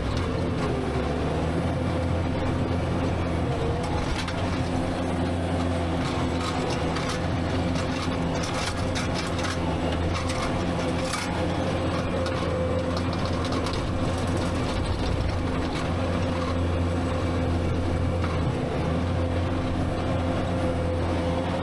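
Skid steer's diesel engine running steadily under work, with scattered clanks and rattles around the middle.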